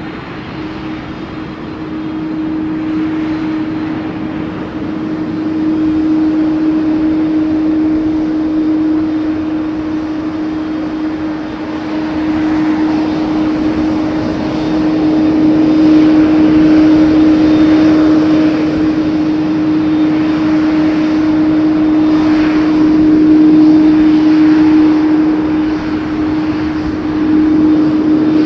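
Jet airliner on final approach passing low overhead to land, its engines giving a steady droning note under a rushing roar that builds over the first half and stays loud.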